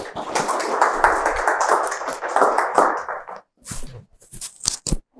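An audience applauding for about three and a half seconds, then a few short clicks and knocks.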